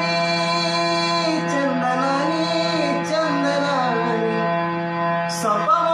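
Marathi devotional song: a male voice sings a long, gliding melodic line over a steady drone accompaniment.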